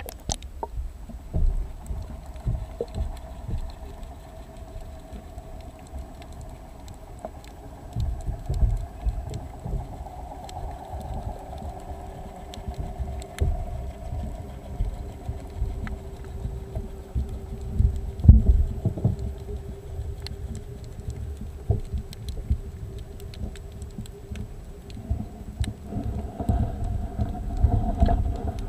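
Underwater audio from a submerged camera: irregular low thumps and water rumble against the housing, the strongest about two-thirds of the way through, over a steady motor hum carried through the water.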